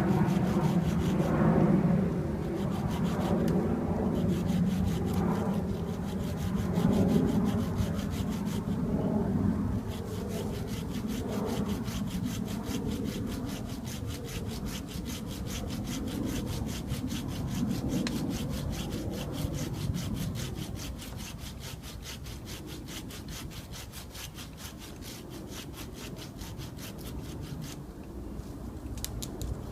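Paracord drawn back and forth over a dead cottonwood branch, sawing into the wood in continuous rubbing strokes. It is louder for the first ten seconds or so, then softer.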